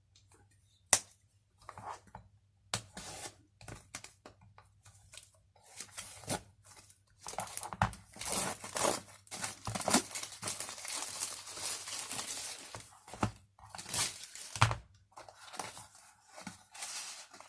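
Hands opening a small cardboard retail box: scattered clicks and taps at first, then several seconds of tearing and crinkling packaging, with a few sharp knocks in between.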